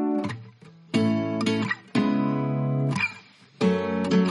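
Background music: an acoustic guitar strums chords, a new chord starting sharply about once a second and each held briefly before it is cut off.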